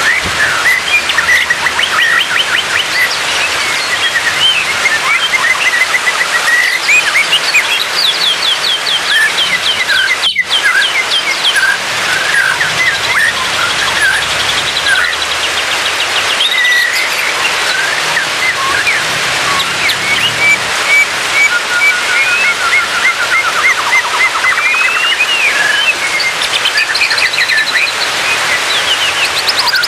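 White-rumped shama singing a long, varied song of whistles, fast trills and rapidly repeated chirps over a steady background hiss. The audio breaks off for a split second about ten seconds in.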